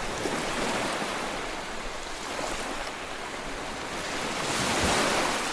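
Choppy sea water washing and splashing, a steady rushing noise that grows louder near the end.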